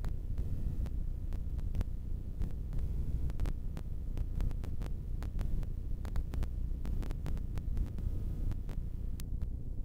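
A steady low rumbling hum, with many short sharp clicks and crackles scattered through it.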